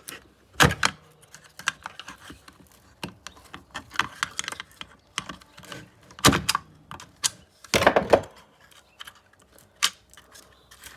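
Irregular clicks, taps and knocks of hand tools and metal parts being handled while a hammer drill is taken apart, with a few louder knocks about a second in and again near six and eight seconds.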